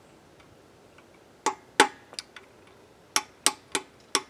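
Hammer tapping a punch against an oil galley plug in a Chevrolet 6.0 L V8 engine block: about eight sharp metal taps in uneven groups, starting about a second and a half in, driving the plug in at its upper edge so it pivots and can be pulled out.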